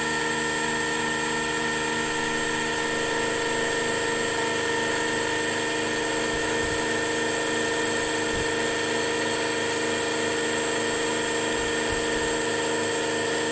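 Milling machine running steadily: a machine drone made of several steady tones, topped by a strong high-pitched whine.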